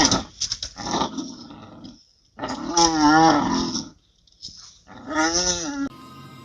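An animal's drawn-out, wavering pitched cries, three in a row; the last one cuts off abruptly.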